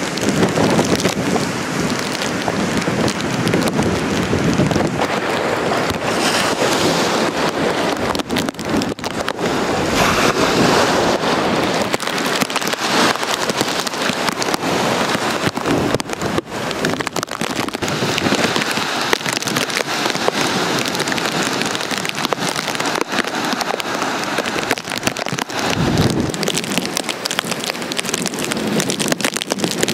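Strong storm wind from an approaching hurricane buffeting the microphone over the rush of surf: a loud, unbroken rush of noise with fine crackling that swells and eases with the gusts.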